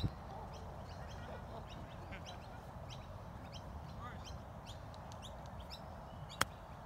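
Birds chirping faintly in a quick run of short high calls, about three a second. Near the end a single sharp click as a golf iron strikes the ball in a short chip shot.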